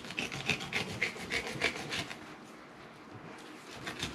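Fillet knife sawing through a fluke on a cutting board in quick back-and-forth strokes, about four or five a second, easing off for about a second partway through.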